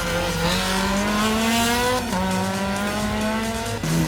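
Rally car engine accelerating hard, its pitch rising, with an upshift about halfway through and a sudden drop in pitch near the end.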